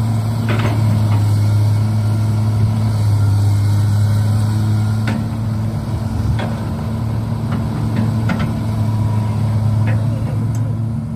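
Radio-controlled model excavator and truck running: a steady low hum with a few sharp clicks.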